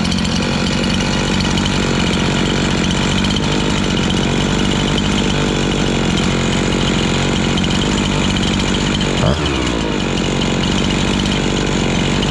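Husqvarna 350 two-stroke chainsaw engine running steadily on its newly fitted aftermarket Nikasil cylinder and piston, freshly started after the rebuild. About nine seconds in there is one brief louder spike with a quick drop in pitch.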